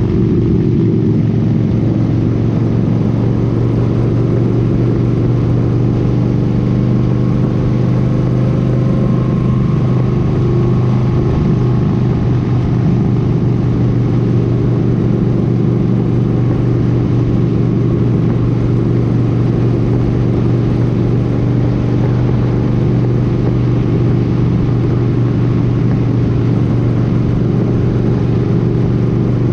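Cruiser motorcycle engine running at a steady highway cruising speed, a constant low drone mixed with wind and road noise.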